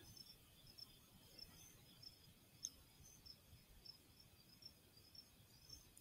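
Faint chirping of crickets, short high chirps repeated a few times a second, with one small sharp click about two and a half seconds in.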